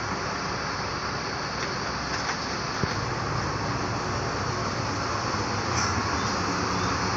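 Diesel bus engine idling: a steady low rumble that gets a little louder about halfway through.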